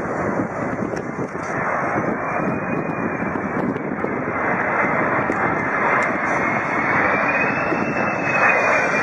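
Airliner engines on approach: a steady rush with a thin high whine that rises slightly near the end, growing gradually louder as the plane comes closer.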